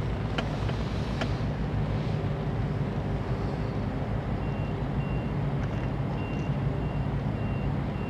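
A steady low engine rumble, with a reversing alarm beeping about twice a second through the second half.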